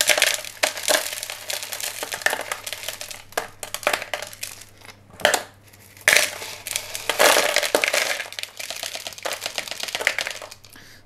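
Plastic orchid pots being squeezed and twisted to loosen the plant for unpotting: irregular crinkling and crackling of the flexing plastic, with small clicks of potting mix dropping into a plastic bowl.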